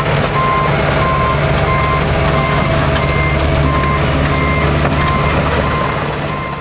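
Komatsu PC128UU compact excavator's diesel engine running as it tracks along, its travel alarm beeping steadily at about one and a half beeps a second. The sound fades near the end as the machine moves away.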